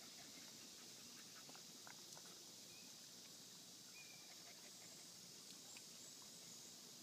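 Near silence: faint steady outdoor background hiss, with a few faint soft ticks and two brief faint high tones about two and four seconds in.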